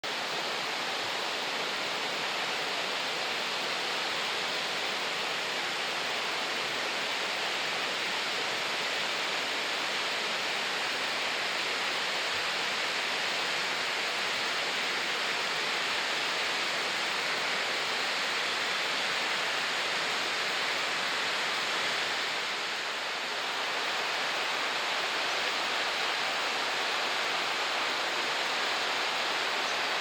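Marugami Falls, a tall three-tiered waterfall, rushing with a steady, even roar of falling water, briefly a little softer about three-quarters of the way through.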